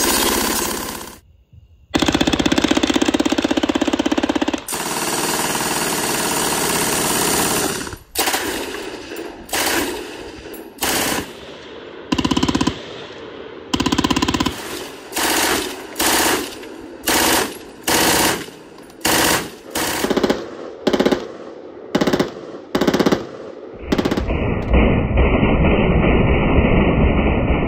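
MG-42 machine guns firing at about 1,500 rounds a minute: long continuous bursts at first with a brief pause about a second in, then a quick series of short bursts roughly one a second. Near the end a denser, duller continuous din of fire takes over.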